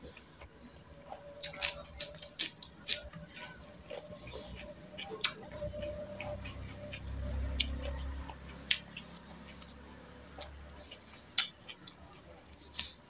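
Close-miked eating sounds: scattered wet mouth clicks and lip smacks, with a low hum for a few seconds in the middle. Near the end a bite is taken into a slice of raw cucumber.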